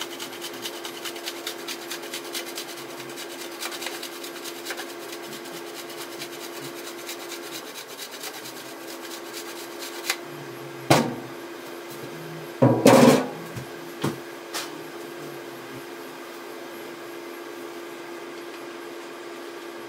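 Parmigiano-Reggiano rasping against a handheld grater in quick repeated strokes for about eight seconds. A few sharp knocks and a short clatter follow a few seconds later.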